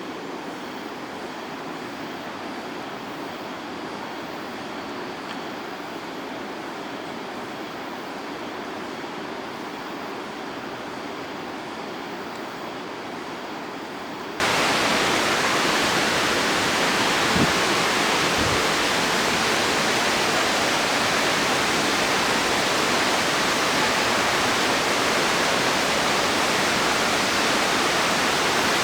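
Waterfall rushing in a steady roar of falling water. About halfway through it abruptly becomes much louder and fuller, as if heard from much nearer the falls.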